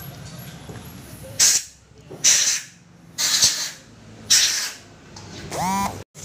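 Four short hissing bursts of pressurised spray, about a second apart, then a brief rising squeak near the end.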